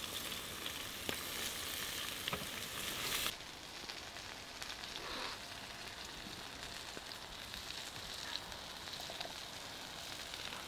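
Batter-coated onions deep-frying in hot oil over a wood fire: a steady sizzle with scattered crackles and pops. About three seconds in it drops suddenly to a quieter, duller hiss.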